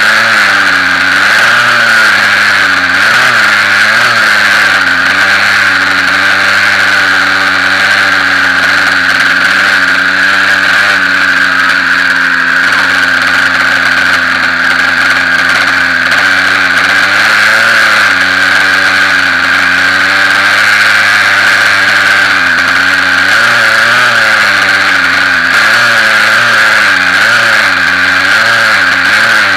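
T-Rex 600 RC helicopter's motor and drivetrain running steadily, heard very close up from its landing skid: a loud, constant whine with a lower engine note that wavers slightly in pitch.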